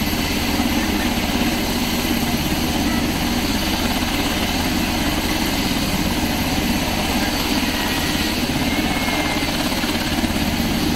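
UH-60 Black Hawk helicopter running steadily on the ground with its rotors turning: a rapid, even rotor beat over the steady run of its turbine engines.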